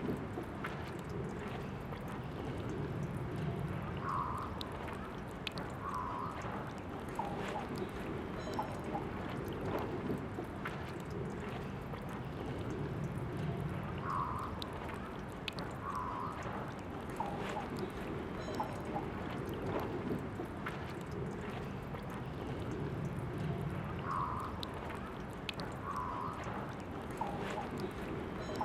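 Water running steadily from a drinking-fountain tap, a continuous trickling pour with small drips and gurgles. The same stretch of sound repeats about every ten seconds.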